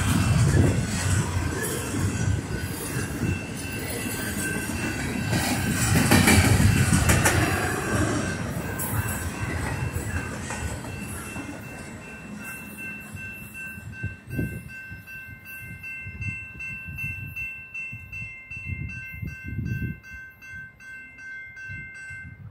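Tail end of a double-stack container train rolling through a grade crossing, its cars rumbling and rattling with some wheel squeal, fading out after about ten seconds. The crossing bell keeps ringing steadily after the train clears and stops near the end as the gates go up.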